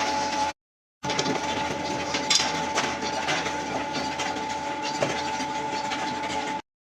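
Factory machinery running steadily, a constant whine over clattering, rattling noise. The sound cuts out completely for a moment about half a second in and again near the end.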